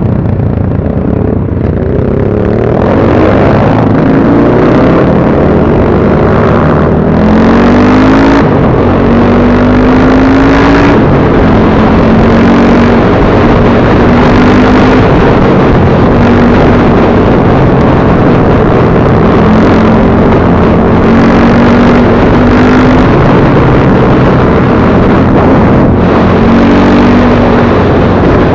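BSE Z6 enduro motorcycle engine running under way, climbing in pitch over the first several seconds as it accelerates, then rising and dipping with the throttle.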